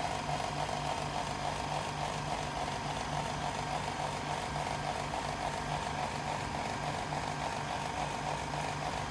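Steady machinery hum with a low throb that pulses several times a second under a higher, even drone, typical of a vacuum pump or compressor running in the workshop.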